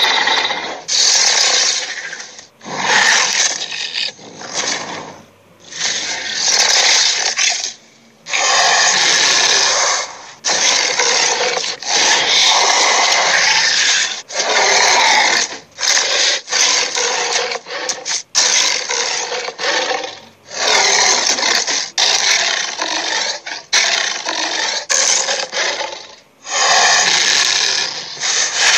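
Cartoon Minotaur monster vocal sound effects: a run of rough, raspy growls, each from under a second to a few seconds long, with short breaks between them.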